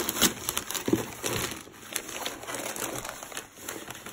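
Paper gift wrapping crinkling and rustling as a child pulls it off a present, in quick irregular crackles.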